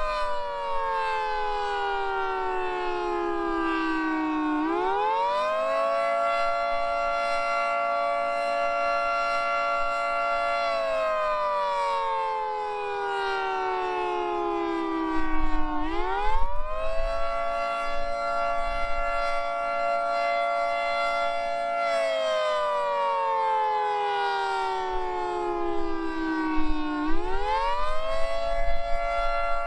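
Federal Signal 2T22 two-tone outdoor warning siren sounding the Attack signal. Its pitch rises quickly, holds for about five seconds, then slides slowly down before rising again, in cycles of about eleven seconds. Wind buffets the microphone in gusts around the middle and near the end.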